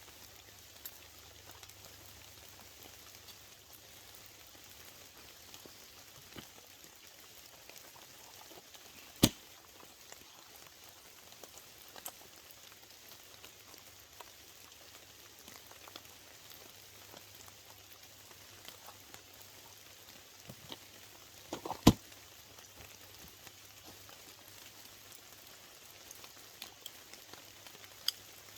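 Light rain pattering steadily, with two sharp cracks about twelve seconds apart and a few faint ticks between them.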